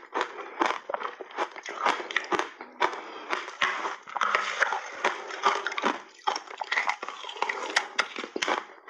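Crunchy shaved ice coated in milk powder being chewed in big mouthfuls close to the microphone: a fast run of sharp crunches and crackles, denser and more continuous in the middle.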